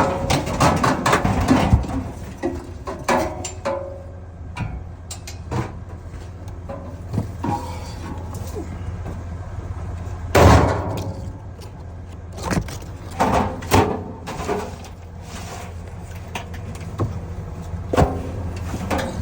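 A vehicle's engine and road hum runs steadily underneath repeated knocks, clanks and thuds, the loudest a heavy thud about ten seconds in.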